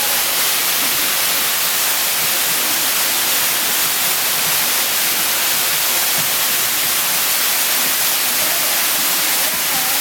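Waterfall pouring over boulders and splashing into a pool at close range: a loud, steady rush of water.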